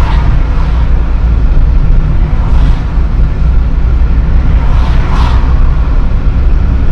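Steady low rumble of a moving car's road and wind noise, heard from inside the cabin.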